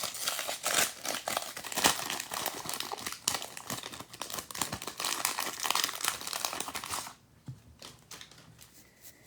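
A 2022 Donruss baseball card pack's wrapper being torn open and crinkled by hand for about seven seconds, then the sound drops to faint handling of the cards.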